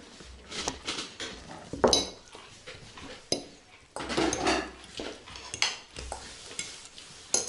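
Metal forks clinking and scraping on ceramic plates as people cut and eat their food, in irregular taps and scrapes.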